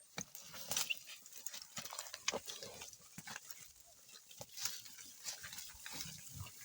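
Irregular clicks, knocks and scraping rustles from ploughing with an ox team, with low animal-like snorts or grunts near the end.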